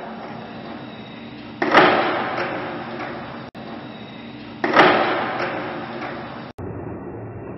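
Skateboard tricks in an echoing underground parking garage: twice, about a second and a half in and again near the five-second mark, the board cracks loudly as it is popped and landed, then the wheels roll on across the smooth concrete floor as the sound dies away. Softer wheel rolling fills the gaps between.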